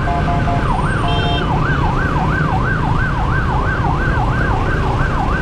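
Electronic emergency siren in a fast yelp, rising and falling about three times a second, over the low rumble of a motorcycle riding in traffic. A short steady tone sounds about a second in.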